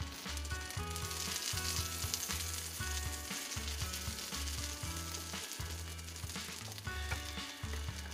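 Oat pancake batter sizzling on a griddle in melted margarine as it is spooned and spread out, the sizzle loudest a second or two in. Background music with a steady bass line plays underneath.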